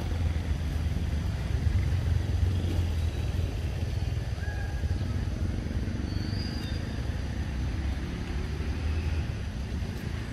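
Steady low rumble throughout, with a few faint short high chirps about four and six seconds in.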